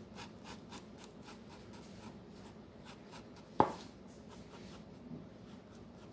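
Pencil scratching on sketchbook paper in short, repeated strokes, faint throughout, with one sharp knock about three and a half seconds in.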